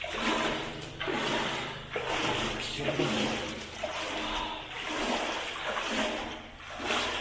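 Water sloshing as someone wades through it, a surge of splashing about once a second.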